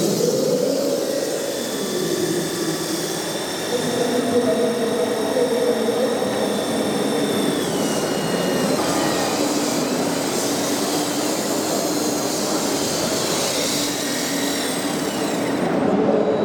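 Radio-controlled scale construction machines running, their electric motors whining at a high pitch that shifts up and down as they work, dropping noticeably about halfway through.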